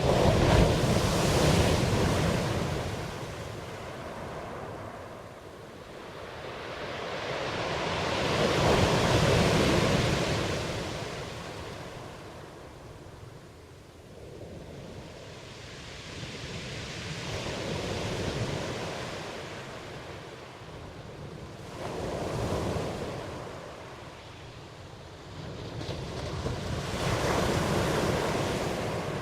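Ocean surf: waves break and wash in as five slow surges of rushing water, each swelling and then fading.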